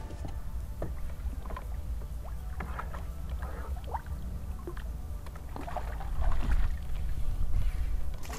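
Water splashing and sloshing as a hooked fish is drawn over a landing net at the surface and lifted out, with wind rumbling on the microphone, loudest about six to seven seconds in.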